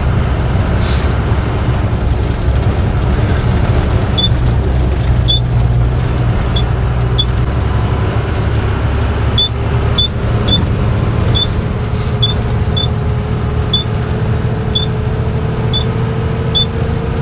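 Truck engine running while driving, heard from inside the cab, with a steady low rumble and road noise; the engine note creeps slowly upward in the second half. Short high ticks sound every half-second to second or so from about four seconds in.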